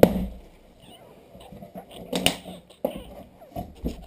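Handling of a cardboard box and its packaging: a heavy thump at the start, then scattered knocks and rustles as things are moved inside the box.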